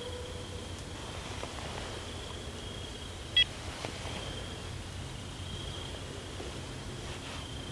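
A GPS dog-tracking handheld gives one short, sharp electronic beep about three and a half seconds in: its alert that the hound has treed. A high, thin insect call runs steadily in the background.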